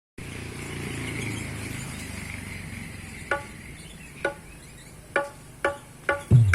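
PA sound system hissing and humming, then five short single keyboard notes played through the speakers, a few seconds apart at first and then quicker, and a low bass note near the end: a sound check before music starts.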